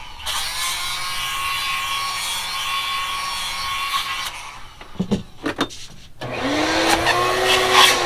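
Shop vacuum hose sucking at the bowling ball's thumb hole with a steady rush and hum. It cuts off at about four and a half seconds, and a motor starts again at about six seconds, rising in pitch as it spins up.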